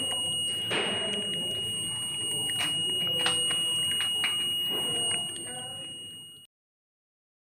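A continuous high-pitched electronic buzzer tone over background voices, cutting off suddenly about six and a half seconds in, followed by silence.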